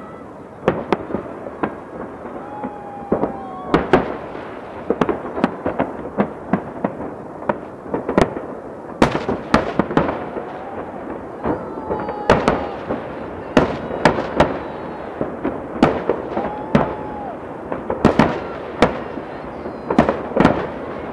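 Aerial firework shells bursting in a large display: many sharp bangs at irregular intervals, some in quick clusters, with no let-up.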